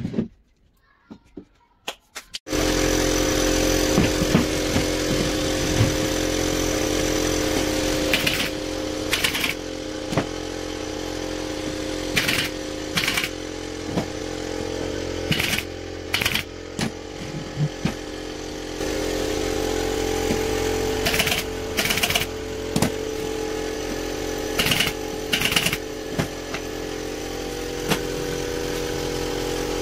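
A motor-driven power tool starts about two and a half seconds in and runs steadily, with short louder bursts every few seconds.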